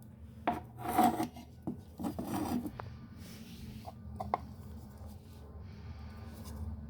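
Rasping, rubbing scrapes about one and two and a half seconds in, with a few sharp clicks and fainter rustling after, over a low steady hum.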